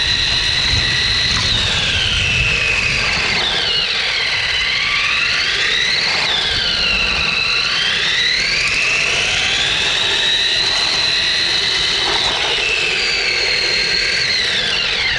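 Electric drive motor of a small RC car whining as it drives, heard from on board, over the rumble of its wheels on rough concrete. The whine dips in pitch twice and climbs back as the car slows and speeds up, then falls sharply at the very end.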